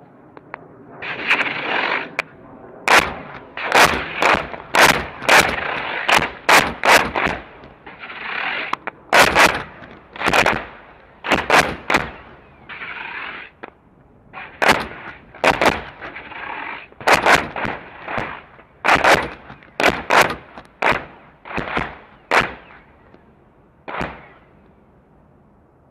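About two dozen sharp detonations from a CBU-105 sensor-fuzed cluster bomb's submunitions going off over and around target tanks, at uneven intervals of one to three a second, with hissing rushes between some of them. The last blast comes about two seconds before the end.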